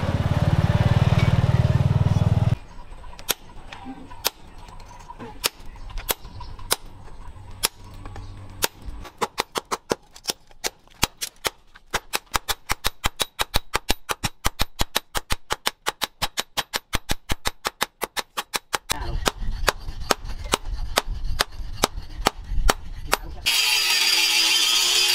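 A loud noisy stretch opens, then a hand hammer strikes a red-hot leaf-spring blank on an anvil: scattered blows at first, then a fast run of several strikes a second, then slower blows again. About two seconds before the end an angle grinder starts cutting the steel, a loud steady grinding with a wavering pitch.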